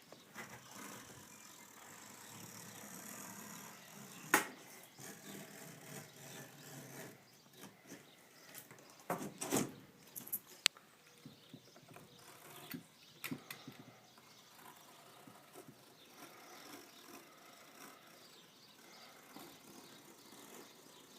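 Utility knife trimming excess rubber spline and screen mesh along the edge of a window screen frame: faint scraping and cutting with scattered sharp clicks and taps, the loudest about four seconds in and again around nine to ten seconds in.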